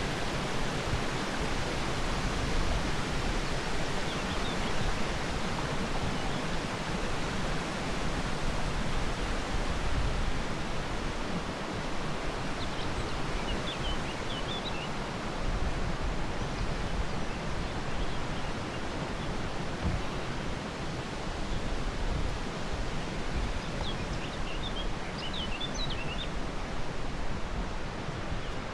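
Steady rushing outdoor ambience, an even noise with no pauses. A few faint, high, short chirps come about halfway through and again near the end.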